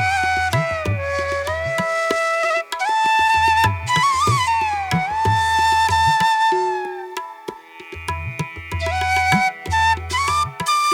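Instrumental background music: a flute-like melody that slides between held notes, over low drum beats that come and go.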